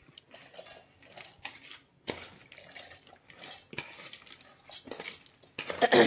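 Soaked chana dal being poured from a bowl into a stainless steel mixer-grinder jar: scattered light clinks and rattles of the wet lentils and the bowl against the steel jar, with a louder cluster near the end.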